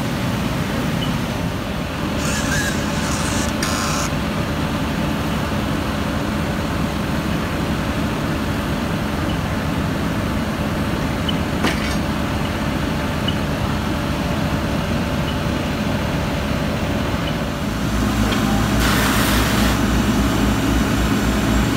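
Fire trucks' engines running steadily, growing louder about eighteen seconds in, with two short bursts of hiss, about two seconds in and near the end.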